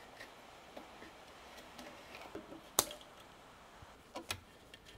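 Scattered light clicks and taps from parts of a sailboat steering pedestal being handled during dismantling, with one sharp click near the middle and a couple of knocks about four seconds in.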